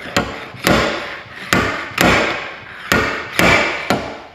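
Stud-welder slide hammer yanked again and again against its stop to pull a dent out of a car's quarter panel, through a stud welded to the metal: about seven sharp metallic strikes, each with a short ring.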